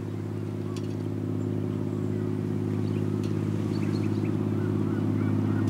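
A motor engine running at a steady pitch, growing steadily louder.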